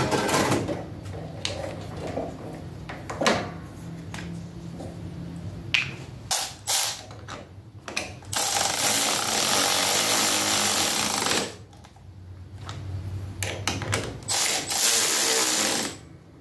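Cordless electric ratchet running, tightening the battery terminal bolts: one run of about three seconds, then shorter bursts near the end. Before that, a few knocks as the lawn tractor battery is set into its tray.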